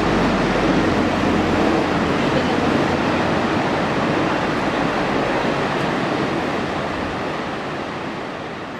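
A train running past with a steady rumble and rush that slowly fades away as it draws off.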